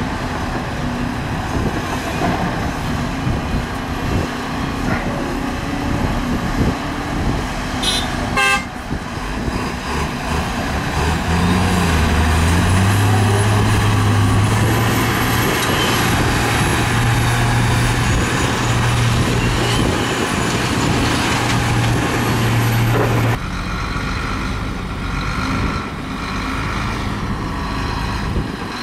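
Heavy diesel machinery working: excavator and dump truck engines running, with a brief clatter of knocks about eight seconds in. A strong steady low drone with a faint high whine comes in about eleven seconds in and stops abruptly near the end, leaving a rougher engine sound.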